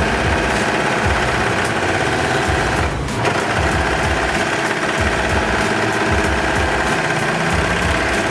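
Brother 2104D overlock machine (serger) running at speed, stitching a seam along the edge of a piece of fabric, with a fast, even mechanical clatter that dips briefly about three seconds in.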